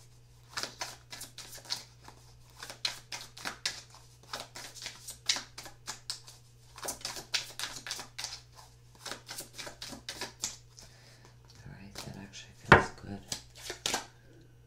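A deck of tarot cards being shuffled by hand: quick, irregular clicks and snaps of the cards, several a second, with a louder thump near the end.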